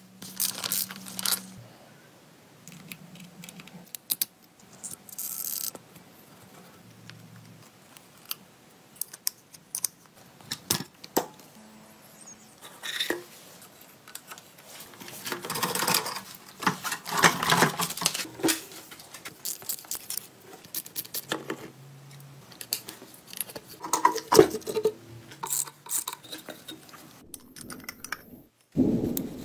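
Hand tools working on an old motorcycle engine: short metallic clicks, clinks and scrapes of a wrench and a socket on bolts, in separate bursts with quiet gaps between them.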